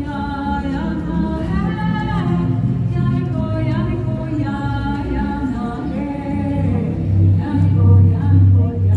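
Choral singing in the sound and light show's soundtrack, several voices holding and sliding between notes, with a low, pulsing drum-like beat coming in about two-thirds of the way through.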